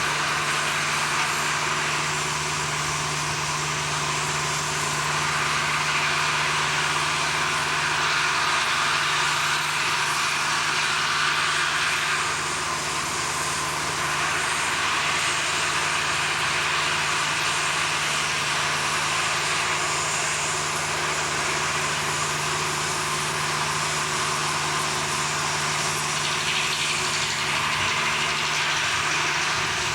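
Steady machinery running: a constant low hum under a broad hiss, with no breaks or distinct impacts.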